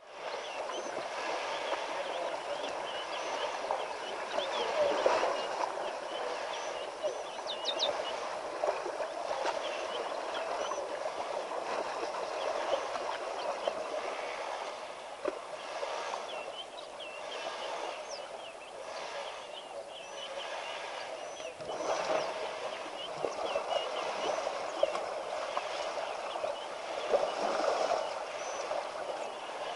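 Steady rush of flowing river water, with many short, high bird chirps scattered over it and a couple of louder swells of water sound.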